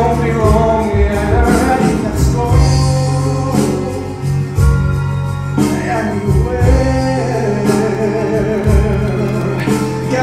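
Male singer performing a musical-theatre ballad into a microphone, holding long notes with a wavering vibrato, over an instrumental accompaniment with a steady bass.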